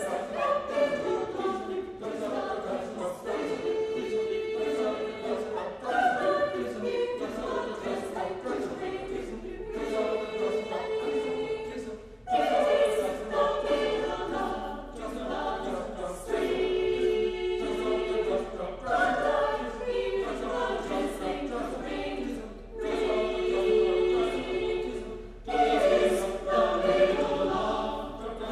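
Mixed chamber choir singing a cappella in sustained chords, in short phrases of a few seconds each.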